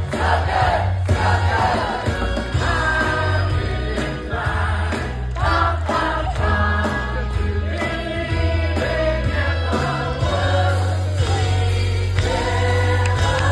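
Stage cast singing an ensemble number together with a live band, over a strong, steady bass line.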